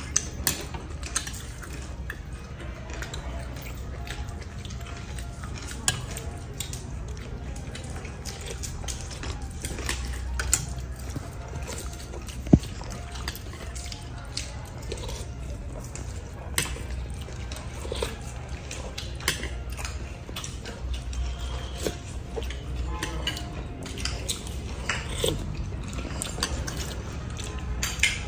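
Metal spoons clinking against ceramic soup bowls and saucers in scattered short clicks as soup is eaten, over a steady low hum; one clink stands out about twelve seconds in.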